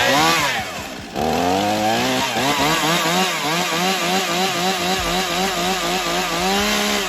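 Two-stroke chainsaw, just started from cold, running and being revved up and down in quick repeated blips, with a brief dip about a second in.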